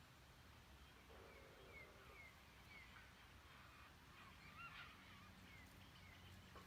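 Faint bird calls: short falling chirps repeated every half second or so, a brief lower call about a second in, and a clearer up-and-down whistle about five seconds in.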